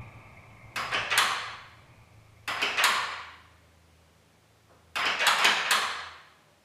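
A door rattling and clattering in its frame in three short bursts, each a quick cluster of sharp strikes that dies away: someone on the other side trying or shaking the door.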